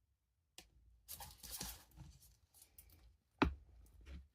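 Handling noises: a brief rustle and a few small clicks, with one sharp click about three and a half seconds in.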